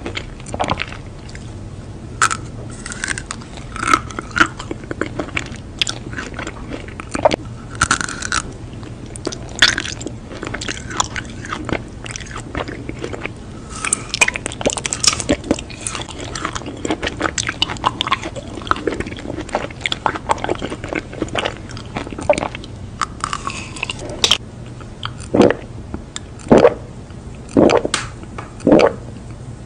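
Close-miked biting and chewing of a green-coated ice cream bar, with irregular crunches and crackles of the hard coating. Near the end come about four lower gulps, a second or so apart, as she drinks a milky drink.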